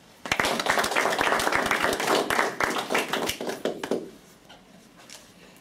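Applause from a small audience clapping. It starts abruptly and dies away about four seconds in.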